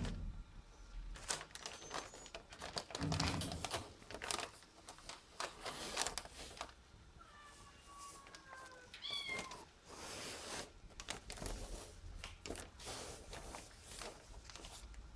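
Domestic cat meowing: one drawn-out meow, falling slightly in pitch, about seven seconds in, then a short higher meow, amid scattered rustles and clicks.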